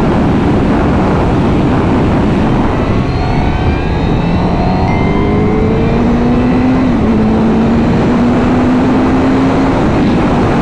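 Motorcycle engine pulling under acceleration while riding, its pitch rising steadily from about three seconds in, with a small drop about seven seconds in before it climbs again, over heavy wind noise.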